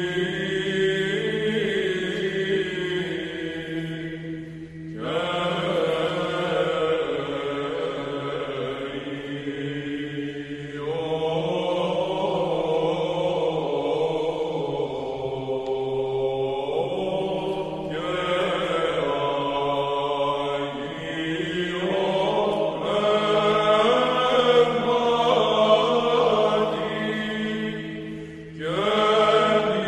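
Background music of slow, meditative chanting over a steady low drone, sung in long held phrases that glide slowly in pitch, with a new phrase beginning every several seconds.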